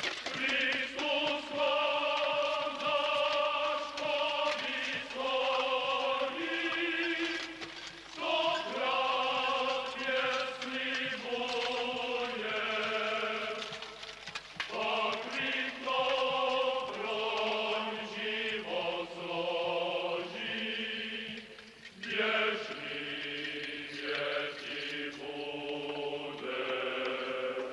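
Choir singing a slow chant-like melody, each note held for a second or two before the voices step to the next.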